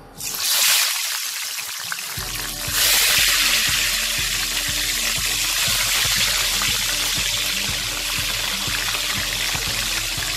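Whole climbing perch (koi fish) sizzling as they go into hot mustard oil in a kadai. The sizzle starts suddenly, gets louder again about three seconds in as more fish go in, and then holds as a steady hiss of deep-frying.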